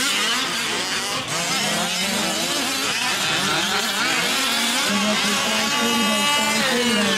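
Several 1/5-scale RC off-road trucks' small two-stroke gas engines buzzing at once, overlapping pitches rising and falling as the throttles open and close.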